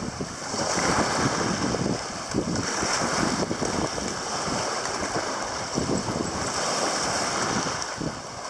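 Shallow water splashing and small waves washing in surges against a muddy shore as a golden retriever wades out dragging a heavy, leafless branch, with wind rumbling on the microphone.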